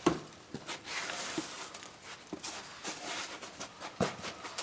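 Irregular handling noise: a handful of sharp knocks spread unevenly over a light rustling, with the loudest knocks at the start and about four seconds in.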